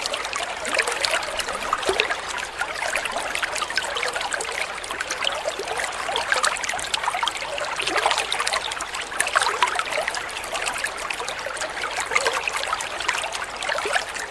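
Water from a small aquarium waterfall falling into the tank, a steady splashing trickle made of many small droplet splashes.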